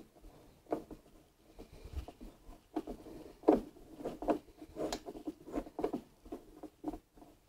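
Screw being driven by hand with a screwdriver into the top cover of a DeWALT DW735 planer: quiet, irregular ticks and scrapes from the tool and the screw, with one sharper tick about three and a half seconds in.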